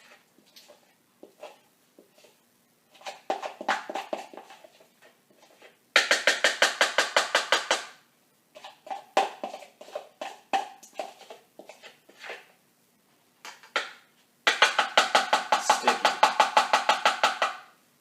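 A spoon scraping peanut butter and clattering against a bowl: scattered clicks and scrapes, then two long runs of fast, ringing knocks at about ten a second, as the peanut butter is shaken off the spoon.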